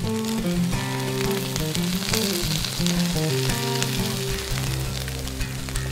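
Meat, potatoes and corn sizzling in an open aluminium-foil packet in a pan, under background music with a melody; a bass line comes in about four seconds in.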